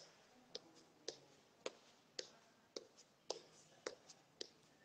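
Faint, light clicks evenly spaced about two a second: a fingertip tapping on a smartphone's screen.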